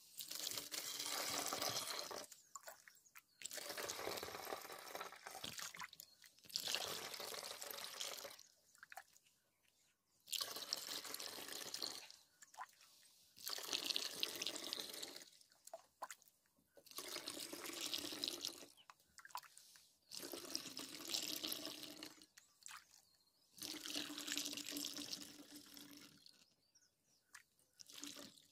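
Fresh cow's milk being poured in repeated pours from a steel cup through a plastic funnel into a bottle: about nine pours of a second or two each, with short pauses between them.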